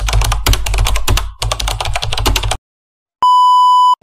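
Typing sound effect: a rapid run of keystroke clicks for about two and a half seconds. After a short silence comes a steady, loud test-tone beep lasting under a second, the kind that goes with television colour bars.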